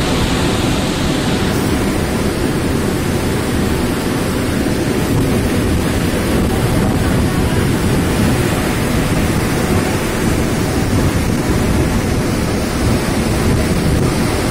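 Cyclone Fani's storm-force wind and rain, a loud, steady rush with wind buffeting the microphone.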